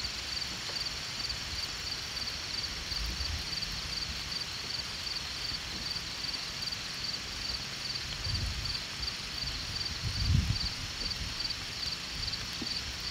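Insects chirping in a steady, high, pulsing chorus, about three pulses a second. Two brief low rumbles come in near the end.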